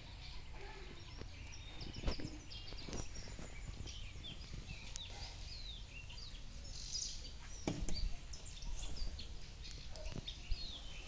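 Small birds chirping, many short rising and falling calls over a steady outdoor background, with a couple of dull knocks.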